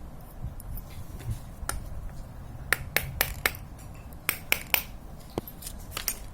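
Small sharp metal clicks from steel ball bearings being set into a bicycle freewheel's bearing race: a quick run of four about three seconds in, three more a second later, and a few fainter ones scattered around them.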